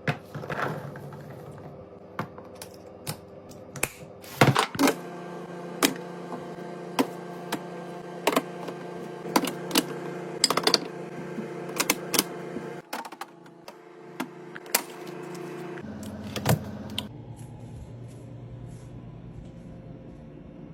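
Sharp clicks, taps and knocks of containers, bottles and packaged items being set down and handled while a fridge is restocked, roughly one or two a second, thinning out near the end.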